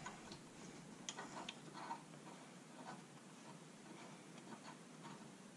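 Faint small clicks and scraping as a brake caliper is handled and its top slide pin is worked in by hand, a few clicks in the first two seconds and weaker ones after.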